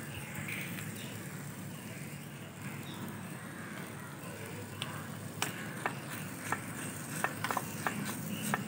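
A tiny metal spoon clicking and scraping against a miniature clay cooking pot while stirring, a run of sharp irregular clicks in the second half, over steady low background noise.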